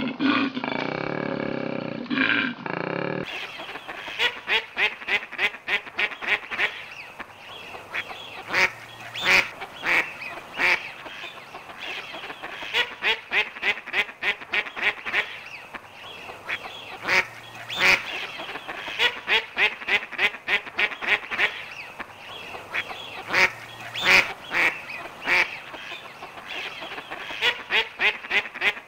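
A koala's deep bellow for the first three seconds, then a mallard duck quacking in repeated runs of quick, short calls with pauses between the runs.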